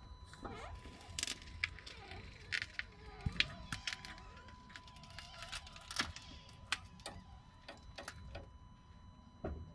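Irregular clicks and knocks from the underside of a car as the steering is turned from lock to lock: a knock the owner hears only on full steering lock, with a new driveshaft already fitted.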